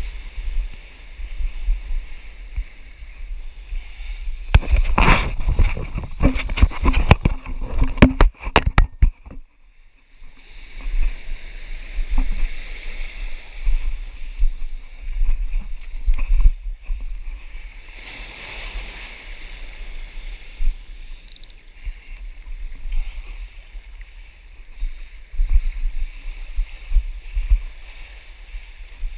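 Surf washing over a cobble beach, with wind rumbling on the microphone. A run of sharp knocks and clatters comes about five to nine seconds in.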